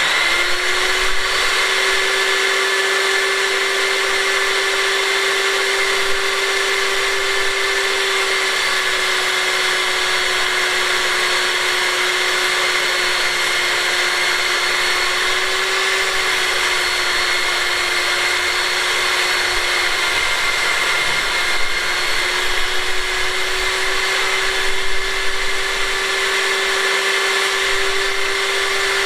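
Electric table saw running and ripping a wooden board lengthwise, a steady loud motor whine. The pitch sags slightly under the cut around twenty seconds in, then recovers.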